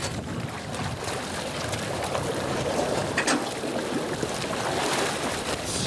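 Boat motor running steadily while the floodwater churns and splashes around the boat.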